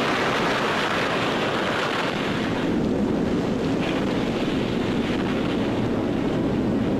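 Steady rushing roar of an atomic blast wave on a 1955 newsreel soundtrack: one dense, even noise with no single bang, holding the same level throughout.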